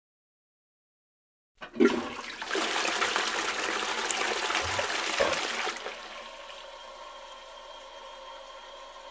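A toilet flushing: after silence, a click about one and a half seconds in, then a loud rush of water for about four seconds that drops to a quieter, steady hiss.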